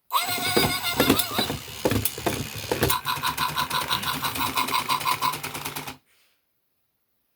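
Tekno robotic puppy playing its electronic sound effects through its small speaker: a jumble of gliding electronic tones and clicks, then a fast pulse of about five beats a second, cutting off suddenly about six seconds in.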